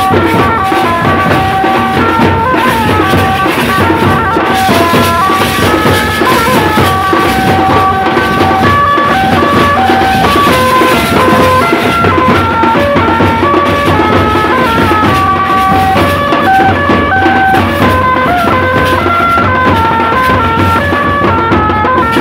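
Loud, dense drumming from a street band: a large bass drum beaten with a stick and tasha drums, under a tune of short held notes played on a melodic instrument.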